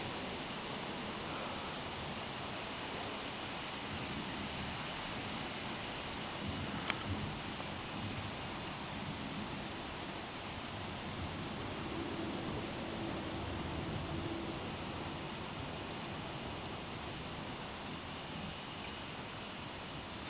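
Night insect chorus: a steady high-pitched trill, with short, higher buzzes now and then. A single sharp click comes about seven seconds in.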